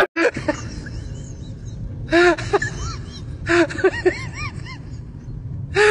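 A crying voice in short wailing bursts that rise and fall in pitch, three times, over a steady low hum.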